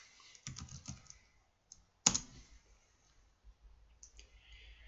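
Computer keyboard being typed on: a quick run of keystrokes, then one louder single keystroke about two seconds in, followed by a few faint clicks.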